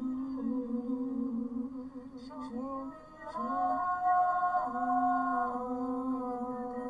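A wordless vocal melody, hummed in long held notes, with a short break about three seconds in.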